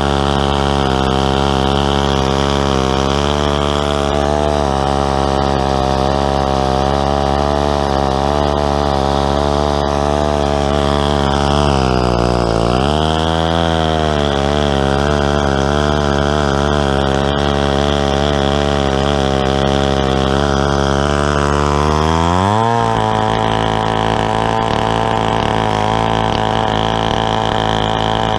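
Stihl 090 two-stroke chainsaw running under load, ripping a log in a chainsaw mill. The engine note sags briefly about halfway through, then rises sharply about three-quarters of the way in and holds steady.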